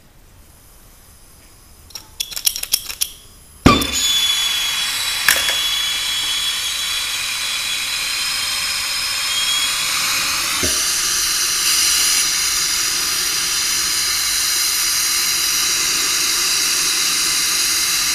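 Air-acetylene turbo torch being lit: a quick cluster of clicks, then the flame catches with a sudden pop about three and a half seconds in and burns with a steady loud hiss.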